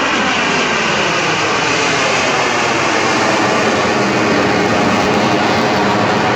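Loud jet aircraft noise from a flypast, a dense rushing sound whose faint tone falls in pitch during the first two seconds or so as the aircraft passes.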